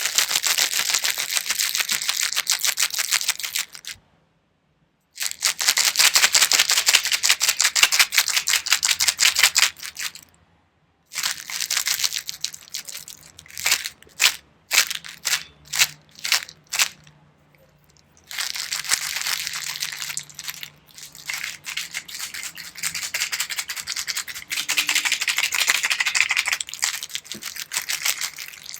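Pills rattling inside a small plastic pill jar as it is shaken, in long runs of rapid clicking, broken by brief pauses and, about halfway, a series of separate short shakes.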